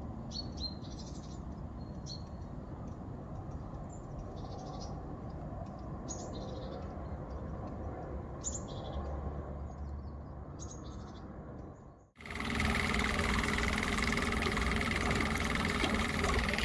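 Short bird chirps every second or two over a low steady rumble. About twelve seconds in, the sound cuts to an electric trolling motor running at the stern of an inflatable boat: a steady whine over churning water.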